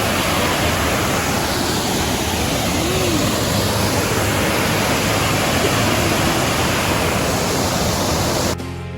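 Waterfall of about 30 feet heard from its base: a steady, loud rush of falling water that cuts off abruptly near the end.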